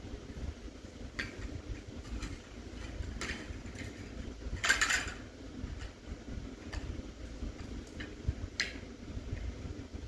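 Cutlery scraping and clinking on plates now and then during a meal, about six times, loudest about five seconds in, over a steady low rumble.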